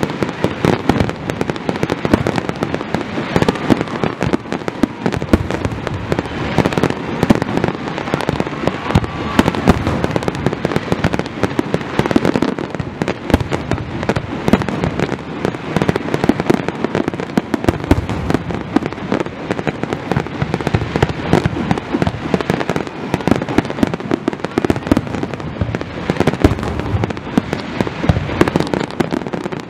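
Fireworks display going off in a dense, unbroken barrage: many shell bursts and crackles overlapping, several bangs a second with no pause.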